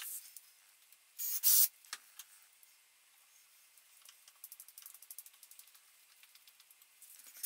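Hand screwdriver driving a screw to fasten an MDF sheet down, with runs of small quick clicks in the second half. A short scraping rush comes about a second in.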